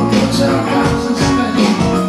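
Live rock band playing amplified in a small room: electric guitars, bass and keyboard holding chords under a percussive beat that hits about twice a second.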